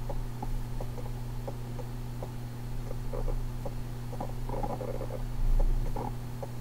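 Plush toy cat's internal mechanism running with a steady low hum, with light clicks and cloth rustling as the toy and its cushion are handled, and a low bump about five and a half seconds in.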